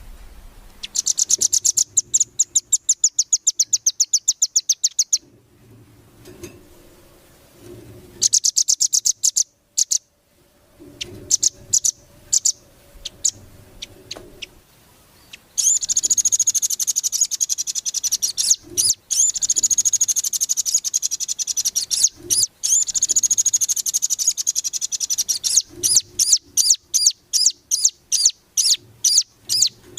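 Velvet-fronted nuthatch (rambatan) singing in fast, high rattling trills. There is a trill in the first few seconds, a short burst, then scattered notes, then a long trill of about ten seconds from around halfway. Near the end the song breaks into separate sharp notes, about three a second.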